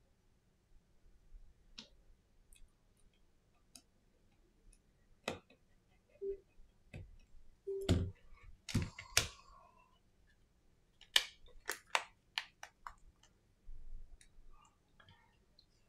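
Scattered small clicks and taps from an iPhone SE (2020) and a precision screwdriver being handled on a silicone repair mat, with a quick run of sharp clicks past the middle as the closed phone is pressed together.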